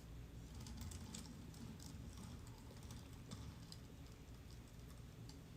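Faint, irregular light clicks and scrapes of a trimming tool working a leather-hard clay bowl, over a low steady hum.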